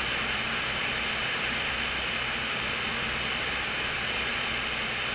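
Steady rush of airflow on a wing-mounted camera of a Cessna 210 in flight, with a low drone from its engine and propeller underneath. It cuts off suddenly near the end.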